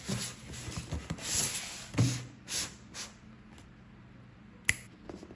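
Packaging being handled: bursts of rustling with several sharp clicks and taps, the loudest single click near the end.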